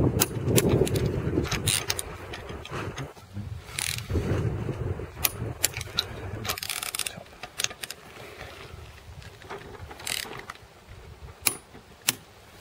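Ratchet wrench clicking in short, irregular runs as the bolts of a weighing transducer module on a steel rail are tightened. A low rumble fades over the first couple of seconds.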